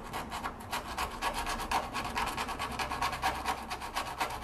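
Needle file rasping back and forth in a freshly drilled hole in a car's sheet-steel body panel, taking the sharp edges off the hole. Quick, even strokes, several a second.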